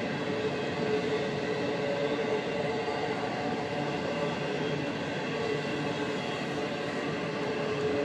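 Double-stack intermodal freight train rolling past: steady rolling noise of the cars with a thin, steady whine on top.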